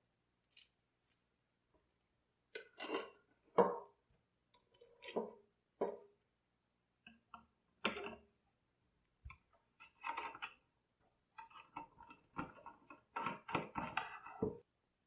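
Small hardware being handled and fitted on a guillotine's blade-arm pivot: a bolt, washers, spacer and nut clicking and clinking against each other and the wooden bench in scattered short taps, coming closer together near the end.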